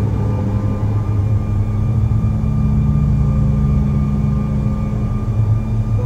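Cabin noise in the rear of a Bombardier CRJ700 while it taxis: its tail-mounted GE CF34 turbofans run at taxi power, heard close through the fuselage as a steady, loud low hum with faint whining tones above it.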